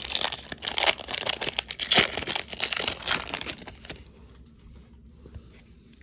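Plastic wrapper of a trading card pack being torn open and crinkled in the hands, a dense crackling for about four seconds that then drops away to a few faint clicks of cards being handled.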